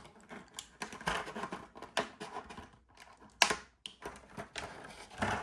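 Irregular small plastic clicks, taps and rustles from handling an action figure and its small accessories, the sharpest click about three and a half seconds in.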